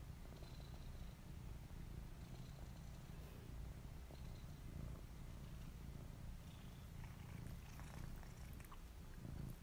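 Domestic cat purring steadily, a faint low rumble close to the microphone. A few light rustles and clicks come in the last couple of seconds.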